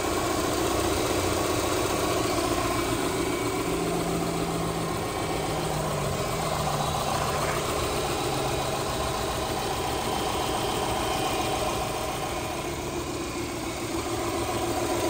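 Subaru EJ253 2.5-litre flat-four engine idling steadily, a remanufactured engine just installed and being run in.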